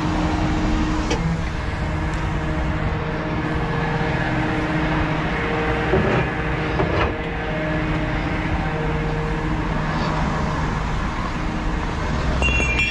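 Steady rumble of heavy diesel engines and roadway traffic, with a few sharp metallic knocks.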